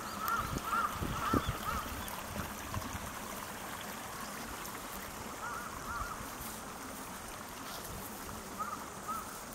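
Waterfowl calling in short, repeated honking notes: a quick run of them in the first two seconds, a couple more midway and a few near the end, over the steady rush of the river.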